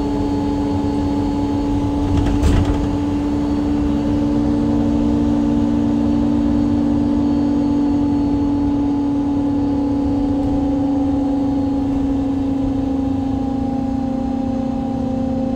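MAN Lion's City G NG313 CNG bus engine and Voith automatic transmission running with a steady drone, heard from inside the rear of the bus above the engine; the pitch sags slightly near the end. A short knock about two and a half seconds in.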